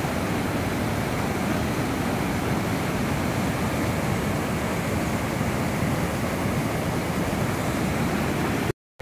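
Muddy floodwater from a river in spate rushing and churning over rocks in rapids, a steady loud rush of turbulent water. It cuts off abruptly just before the end.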